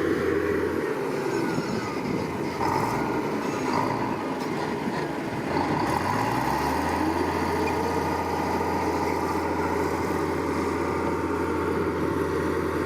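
Heavy earth-moving machine's diesel engine running; its pitch dips, then rises about six seconds in and holds steady under load.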